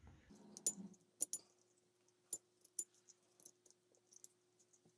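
Faint, scattered clicks and light taps of small metal parts and a pick against the plastic frame of a Byrna HD air pistol while the popped-out sear spring is worked back in, with a faint steady hum underneath. The footage is fast-forwarded.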